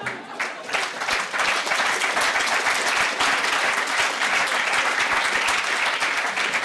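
A large audience applauding: dense, steady clapping that swells over the first second.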